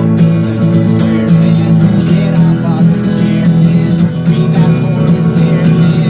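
Acoustic guitar strummed steadily, ringing chords in an instrumental passage with no singing.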